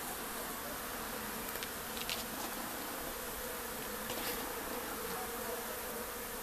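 Honeybees buzzing steadily around an opened nucleus hive, a small colony being moved to a new box, with a few faint clicks in the middle.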